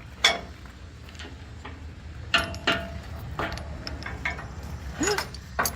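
Several sharp metallic clinks and clicks, spaced irregularly over a few seconds, from tie-down chains and hardware being handled, over a steady low rumble.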